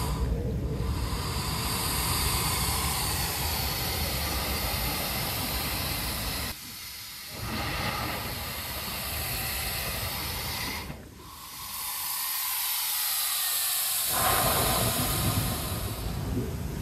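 Coastal lava rock 'breathing': air and seawater rushing through cracks in the rock with a loud, steady hiss. The hiss drops away twice, briefly about halfway through and again for a few seconds soon after, then comes back.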